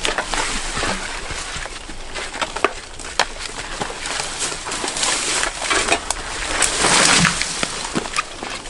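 Footsteps crunching and rustling through dry forest debris on a trail, with scattered snaps of twigs and a louder rustle about seven seconds in.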